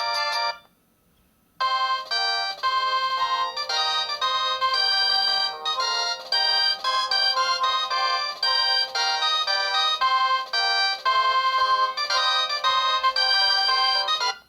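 Built-in ringtones of a Maxcom Strong MM917 3G phone playing. One tune stops within the first second, and after a pause of about a second another electronic melody of quick-changing notes plays, cutting off just before the end.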